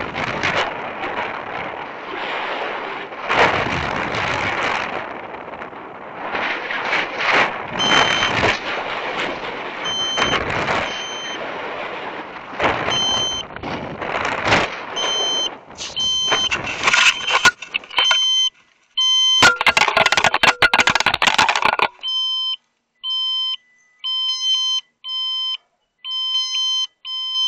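Air rushing over the rocket's onboard microphone, with an electronic beeper in the rocket sounding short repeated beeps through it. About 19 s in comes a loud rough burst of a couple of seconds, the rocket coming down onto the roof. After that the rushing stops and only the beeps go on, one to two a second.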